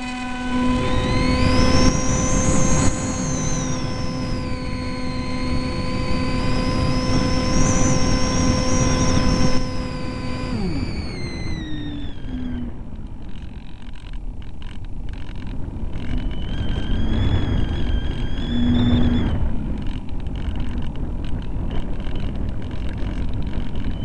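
EasyStar model plane's brushless electric motor and propeller whining in flight, with air rushing past the onboard camera's microphone. The whine's pitch rises and falls, then winds down about ten seconds in as the motor is throttled back. A lower, steadier whine returns a few seconds later.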